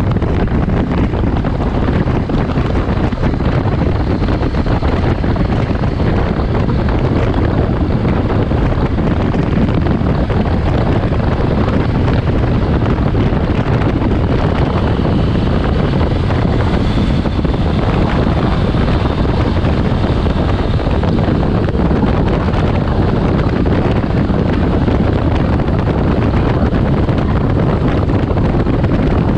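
Steady, loud wind rush over the microphone of a motorcycle on the move, with the engine running underneath it.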